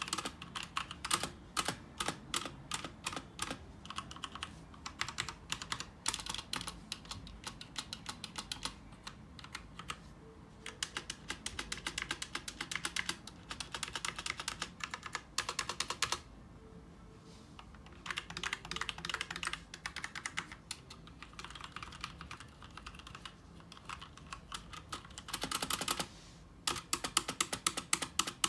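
Drevo Tyrfing V2 mechanical keyboard with red linear switches being typed on: rapid runs of clacking keystrokes broken by a few short pauses.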